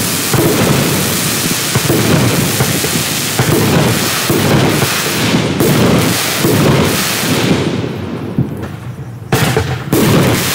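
Black Cat Thunder Mania 16-shot consumer firework cake firing: shells launch and burst about once a second over a steady crackle. The firing eases off briefly about eight seconds in, then picks up again.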